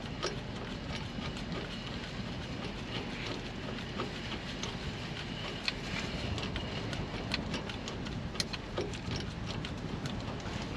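Ratchet wrench clicking in short runs as nuts are tightened, over a steady background hiss.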